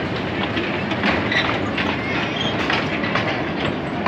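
Miniature passenger train's cars rolling past on narrow-gauge track, the wheels clicking over the rail joints, with a few brief high squeaks.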